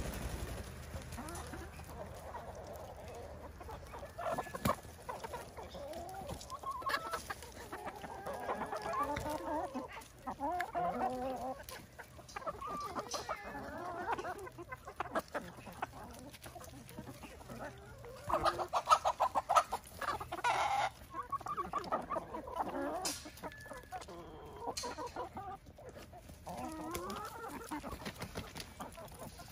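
A mixed flock of backyard chickens clucking and calling, with a loud run of quick clucks about two-thirds of the way through.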